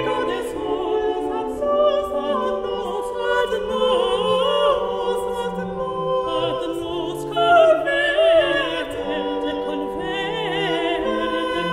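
A choir singing in several voice parts, sustained notes with vibrato, with a high voice swelling loudest about two-thirds of the way through.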